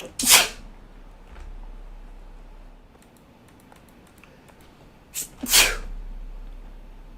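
A person sneezing twice, about five seconds apart. Each sneeze is a short, sharp burst preceded by a brief catch of breath.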